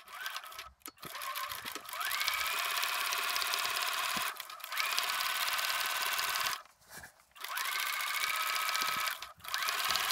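Bernina electric sewing machine stitching quilt binding in several short runs. The motor's whine rises in pitch as it speeds up at the start of each run, then stops briefly before the next.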